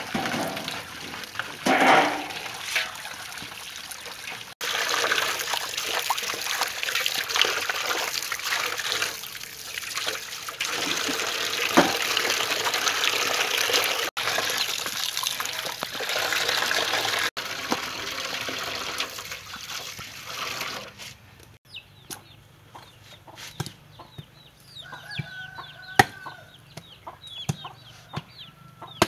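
Tap water pouring into a large aluminium basin and splashing as hands scrub raw pork legs in it. About 21 seconds in the water sound stops, leaving chickens clucking in the background and a few sharp knocks.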